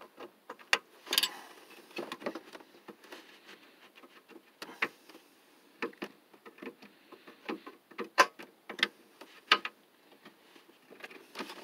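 Channel-lock pliers working a hose clamp onto the lower radiator hose: irregular sharp metal clicks and taps, a few louder knocks among them.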